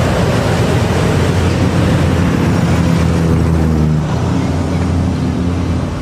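Road traffic passing close by: bus, car and motorcycle engines with tyre noise in a steady, loud rush.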